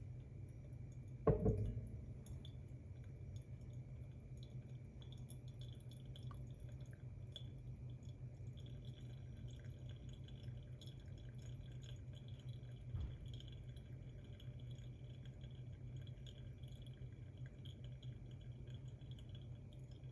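Gooseneck kettle set down on the table with a sharp knock about a second in, then the faint ticking and fizzing of coffee draining through the grounds in a paper-filter pour-over dripper, over a low steady hum. A second, lighter knock comes about two-thirds of the way through.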